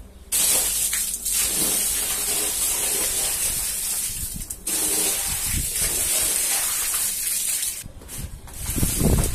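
A heavy stream of water gushing and splashing onto a rug, starting suddenly about half a second in, stopping briefly near the middle, then running again. Near the end a squeegee starts pushing water across the soaked rug in swishing strokes.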